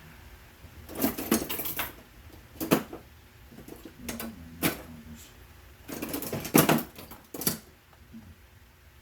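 Small metal hand tools clicking and rattling in five or six short bursts, handled against a stubborn screw with a head that does not take a Phillips driver.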